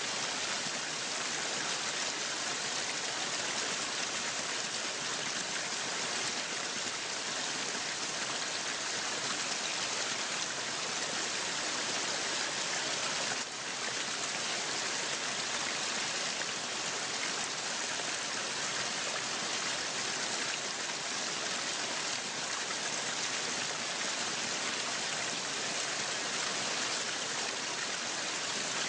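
Waterfall: a steady rush of falling water, an even bright hiss with little low rumble and a brief dip in level about halfway through.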